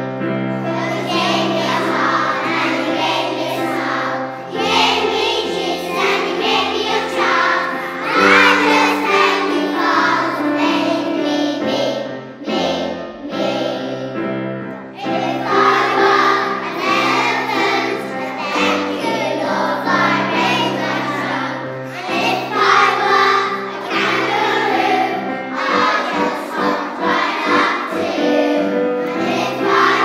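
A group of young children singing a song together over a musical accompaniment.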